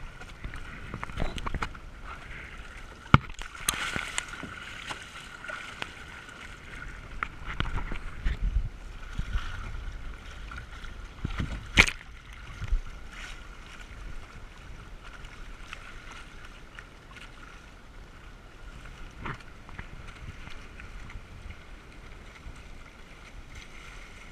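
Water rushing and sloshing along the hull of a Hobie Tandem Island sailing kayak under sail, with wind rumbling on the microphone and a faint steady high whine. A few sharp splashes break through; the loudest comes about twelve seconds in.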